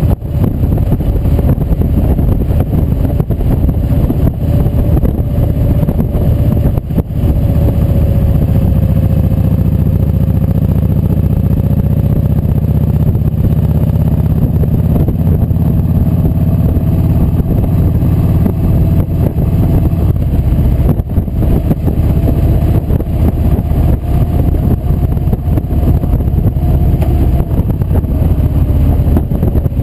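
Kawasaki Vulcan Voyager VN1700 V-twin heard from on board while cruising steadily, a constant low drone with a faint whine above it that rises a little and falls again near the end.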